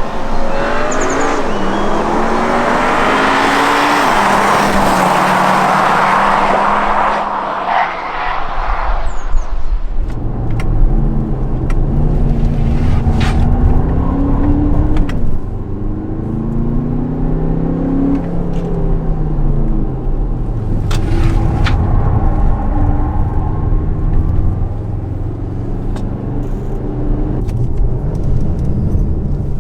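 Škoda Kodiaq RS's 2.0-litre four-cylinder engine accelerating through the gears, its note climbing and dropping back at each upshift. A loud rushing noise covers roughly the first ten seconds.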